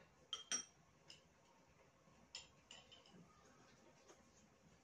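Near silence broken by a few light clicks and clinks of chopsticks against bowls, two close together about half a second in and several fainter ones scattered after.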